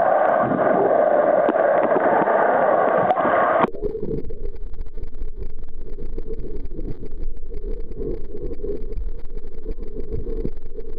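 Muffled underwater noise picked up by a camera in a waterproof housing: a dense wash with faint steady whines in it. About three and a half seconds in it cuts abruptly to a duller, lower rumble with flickering water movement.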